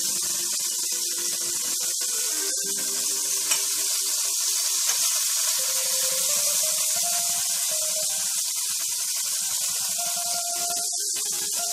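Floured chicken breast pieces shallow-frying in hot oil in a metal pan, a steady sizzle, with a single light click of tongs against the pan about three and a half seconds in.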